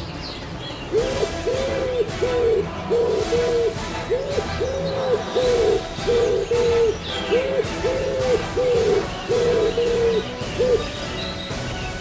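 Common wood pigeon cooing: phrases of low hooting notes repeated for about ten seconds, the song ending on a short clipped note. Faint chirps of small birds behind it.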